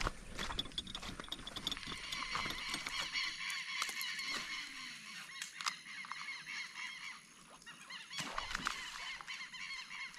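Birds calling: many short squawking calls repeat and overlap, with a brief lull a little past the middle.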